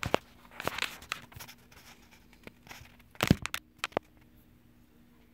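Fingers rubbing and tapping against a phone as it is handled, then a loud knock a little over three seconds in as the phone is set down on the bench, followed by a couple of small clicks.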